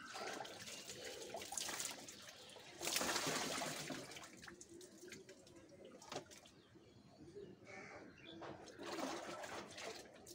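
Water splashing and streaming as long, soaked hair is lifted out of a plastic tub of water and dipped back in, the water pouring off the hair into the tub. The loudest splash comes about three seconds in, with another near the end.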